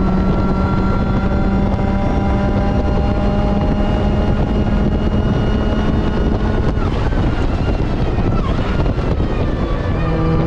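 Supercharged Mazda MX-5 NB engine pulling hard at track speed. Its steady note breaks off about two-thirds of the way in, wavers, and picks up again near the end.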